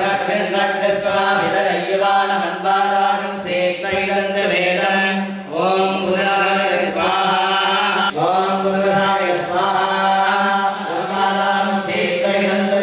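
Male voices chanting Sanskrit Vedic mantras together in a steady recitation, over a sustained low tone.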